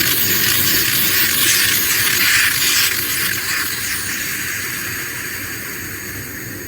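Compressed air hissing out of an air compressor's hose line, loudest for the first few seconds and then fading steadily as the pressure bleeds down to zero.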